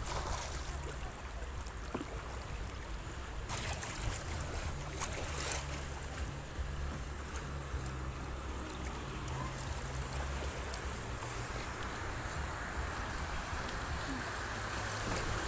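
Rushing, choppy river water around a kayak, with a steady low wind rumble on the microphone and a few faint clicks.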